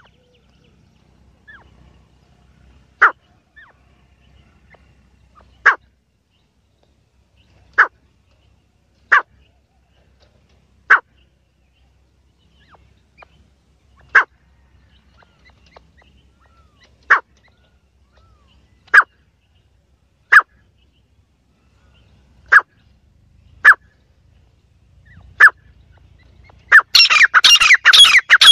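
Francolin (teetar) giving single short, sharp calls, one every two seconds or so, then breaking into a loud, rapid run of repeated calls near the end.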